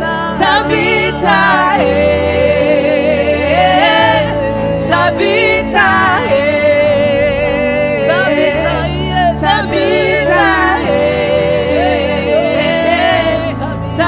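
Gospel worship music: a voice singing a wavering, melismatic line with vibrato over sustained instrumental chords and bass that change every few seconds.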